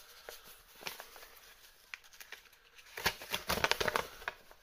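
A folded paper instruction leaflet being unfolded by hand: faint paper crackles, then louder rustling and crinkling for about a second and a half, starting about three seconds in, as the sheet is opened out.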